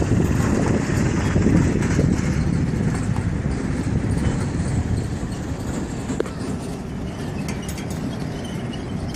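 Airbus A330's jet engines at takeoff thrust, heard from a distance as a low, steady rumble that fades slowly as the airliner climbs away.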